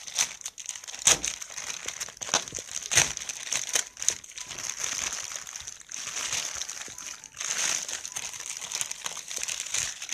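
Plastic courier mailer bag crinkling and rustling as it is handled and pulled open by hand, with sharp, irregular crackles.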